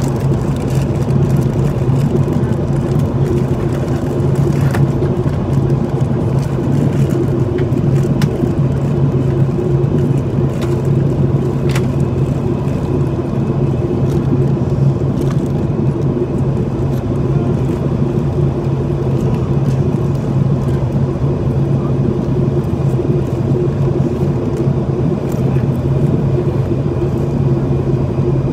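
Steady in-flight cabin drone of a Boeing 737-800: its CFM56 turbofan engines and the rush of air past the fuselage, a constant low hum under a broad roar, with a few faint clicks.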